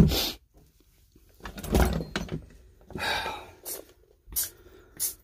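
A few short hissing bursts from work on a chainsaw engine under a soapy-water pressure leak test: one loud burst at the very start, a longer hiss about three seconds in, and three brief sharp ones near the end.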